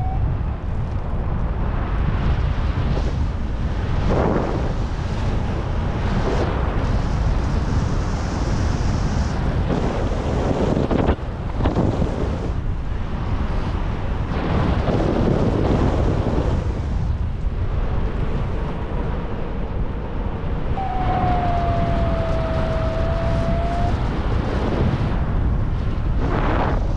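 Airflow rushing over the microphone in flight under a paraglider, a loud, steady buffeting that swells and eases in gusts. About three-quarters of the way through, a single steady tone sounds for about three seconds.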